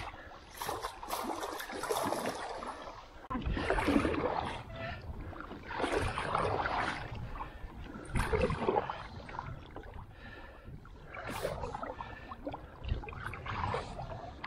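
Kayak paddle strokes in choppy sea water: the blades dip and splash about every two seconds, with water washing along the hull between strokes.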